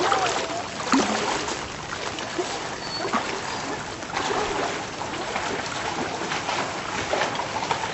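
Floodwater splashing and running: a steady rushing haze with many short splashes scattered through it.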